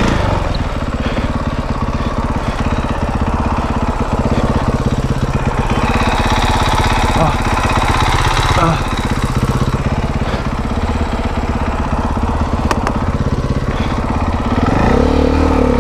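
KTM dirt bike engine running at low speed and idling, a steady fast pulsing. About a second before the end it revs up and back down once.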